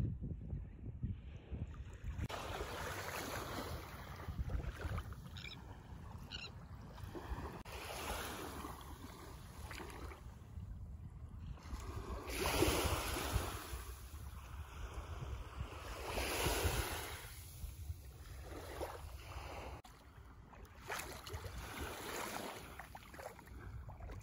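Small waves lapping and washing up onto a sandy shore, the wash swelling and falling back every few seconds, over a low rumble of wind on the microphone.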